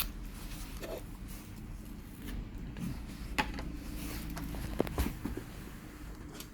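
A few small sharp clicks and light taps of plastic tablet parts being handled while a home button is fitted into a replacement screen, over a steady low hum.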